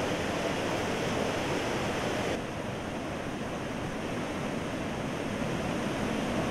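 Floodwater rushing, a steady rough noise that turns duller about two and a half seconds in.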